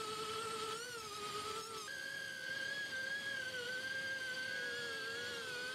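The RC hydrofoil's brushless motors and air propellers whining steadily; the pitch steps up about two seconds in as the motors speed up, then wavers slightly.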